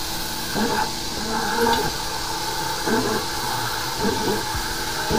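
High-pressure sewer jetter hose spraying water inside a drain pipe, making a steady hiss.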